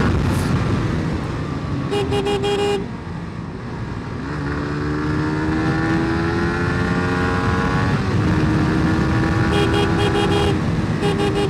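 A motorcycle engine pulls hard with its pitch climbing steadily for about four seconds, then drops back at a gear change and runs on. Around it a vehicle horn sounds in short repeated beeps, once about two seconds in and again near the end, over road and wind noise.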